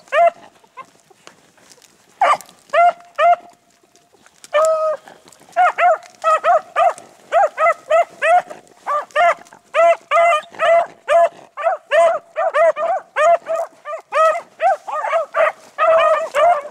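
Beagle hounds giving tongue: short, high, repeated barks. A few come scattered at first, then about five seconds in they settle into a steady run of two or three a second. This is typical of hounds trailing a rabbit's scent.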